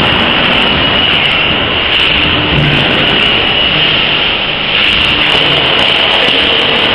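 Corn-filling machine running steadily: loud, even machine noise with a strong high hiss. It dips briefly about four and a half seconds in.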